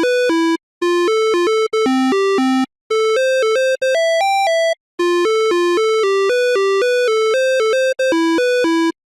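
Emergency-alert-style electronic alarm tone played as a quick synthesized melody: short, bright, buzzy notes hopping between a few pitches. The notes come in phrases broken by brief silent gaps, about every two seconds.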